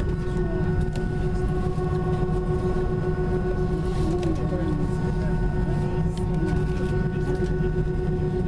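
Cabin of an Airbus A320 on the ground with its engines running: a steady low rumble with several steady whining tones above it.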